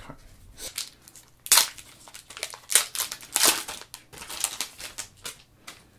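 Foil wrapper of an Upper Deck Marvel Ages trading-card pack crinkling and tearing as it is ripped open by hand, in a run of irregular sharp crackles.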